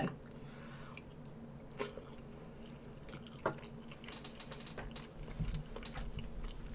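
Quiet eating sounds: a person chewing and biting food, with scattered small clicks. The chewing gets a little louder and denser in the last two seconds.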